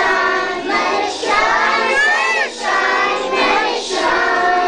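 A group of young children singing a song together in short phrases.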